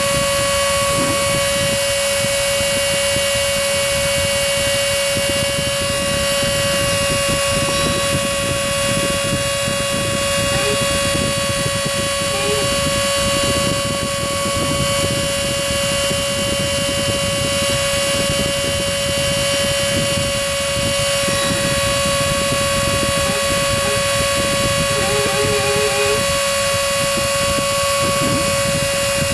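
CNC machine running steadily: a constant high motor whine over a mechanical rumble, with no change in pitch or pauses.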